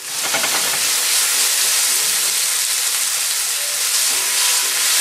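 Undrained spaghetti, still wet with cooking water, dropped into a hot pan of olive oil and garlic and sizzling loudly. The sizzle starts suddenly and holds steady.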